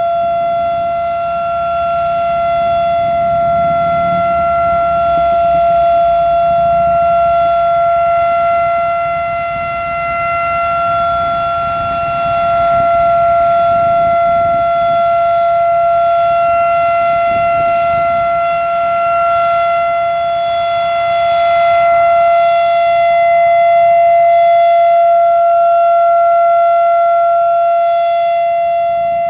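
Federal Signal Thunderbeam RSH-10 rotating outdoor warning siren sounding its alert signal: one loud, steady tone held at a constant pitch. The tone swells and fades slowly as the rotating siren turns toward and away from the listener.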